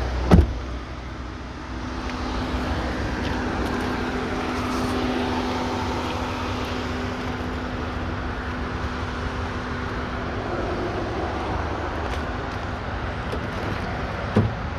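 A heavy car door on a Cadillac Fleetwood limousine shutting with a loud thump, followed by a steady hum of a motor vehicle that runs on for several seconds; a second, lighter thump comes near the end.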